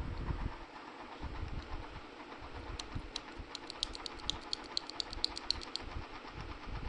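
Typing on a mechanical keyboard for a switch sound test: a steady patter of dull low key strokes. From about three to six seconds in, a quick run of sharp, high clicks joins them.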